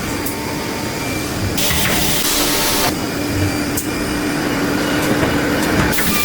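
CNC woodworking machine running: a steady hum under continuous mechanical noise, with louder, hissier stretches of machining about one and a half seconds in and near the end.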